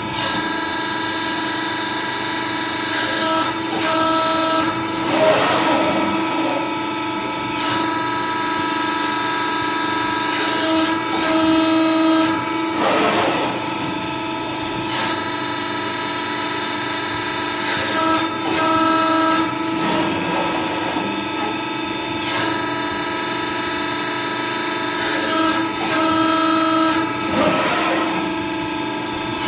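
Hydraulic CNC press brake running through repeated cycles: a steady hum made of several held tones, with a short step in pitch and a brief rushing noise coming back about every seven seconds as the machine cycles.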